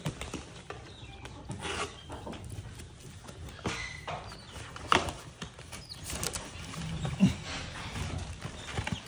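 Cardboard box being handled and opened with a capuchin monkey clambering on top: scattered knocks, scrapes and rustles of cardboard, the loudest knock about five seconds in and another just after seven seconds, with a few short high calls from the monkey.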